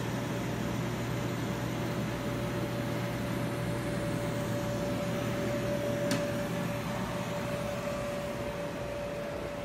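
Electric blower fan of an inflatable bounce house running, a steady hum with a constant tone over a rushing of air. A brief click about six seconds in.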